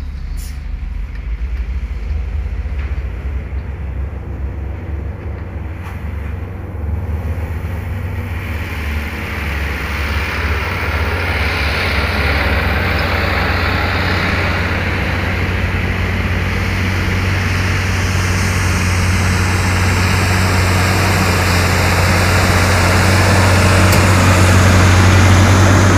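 Diesel engine of a loaded Hino 500 dump truck running as the truck drives up close, a steady low engine drone that grows louder as it approaches. From about a third of the way in, a rising hiss of tyres and engine noise joins it, loudest near the end as the truck passes.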